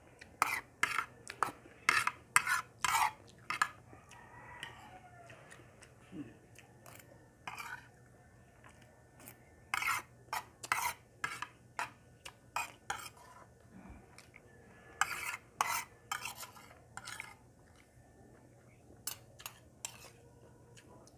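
Metal spoon clinking and scraping against a ceramic plate and a bowl while eating: a run of sharp, irregular clicks with short pauses.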